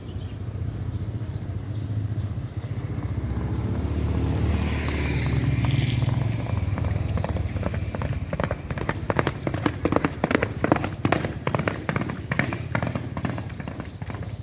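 Horses galloping past: a low rumble builds, then from about eight seconds in a rapid, loud run of hoofbeats that eases off near the end.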